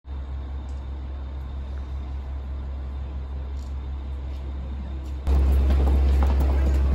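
Steady low rumble of railway station background noise, turning markedly louder about five seconds in.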